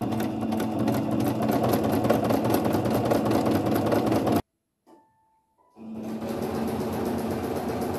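Electric sewing machine stitching at a steady, rapid needle rate. It stops abruptly about four and a half seconds in and starts stitching again over a second later.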